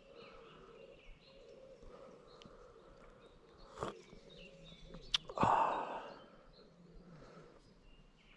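Birds chirping in short high calls, with a sharp click a little after the middle and, just after it, a brief louder noisy burst.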